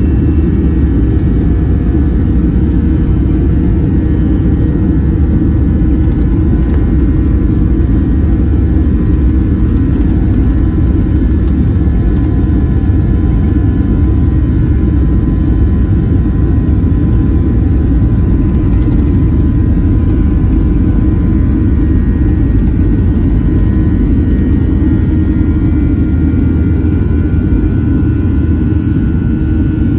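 Boeing 737-800 jet airliner heard from inside the cabin: a loud, steady rumble of engines and airframe with faint steady whine tones above it. A higher whine comes in near the end.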